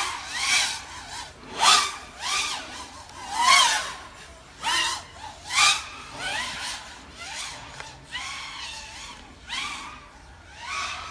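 FPV racing drone's brushless motors and propellers whining, the pitch and loudness swelling and dropping again and again, about once a second, as the throttle is worked.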